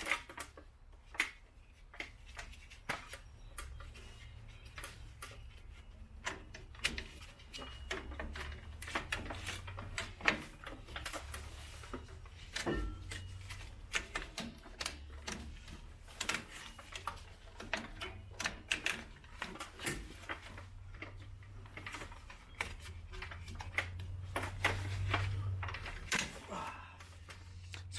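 Irregular clicks, taps and clinks of hand work on the truck's parking brake cable and its hardware, scattered throughout, over a low steady hum.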